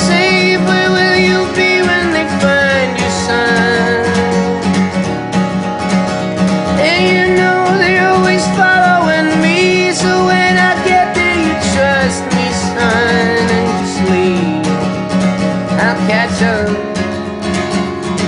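Background music: a song led by guitar, here in a passage between sung lines.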